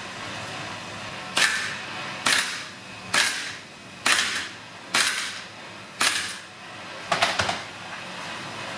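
Sharp metallic strikes, six about a second apart and then a quick run of three near the end, while the nut holding an air-conditioning compressor's clutch drive plate is being worked loose.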